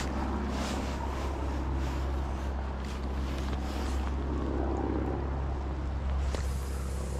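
Steady low drone of a low-flying aircraft's engine overhead, heard against wind on the microphone.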